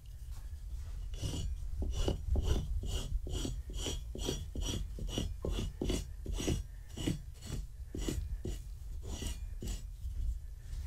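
A handheld brush scraped over a fabric blanket in quick repeated strokes, about two or three a second, raking up shed cat fur; the strokes stop shortly before the end.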